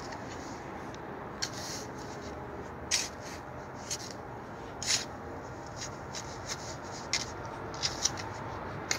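Scattered short rustles and scrapes of hands or clothing rubbing close to the microphone, over a steady background hiss.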